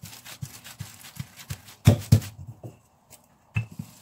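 Hands patting and smoothing bulgur kubba dough through a plastic sheet on a tabletop: soft rustling and light taps, with two loud knocks about two seconds in and another near the end.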